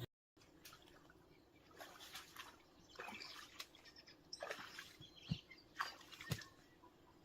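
Faint outdoor quiet with scattered short bird chirps and a few soft ticks.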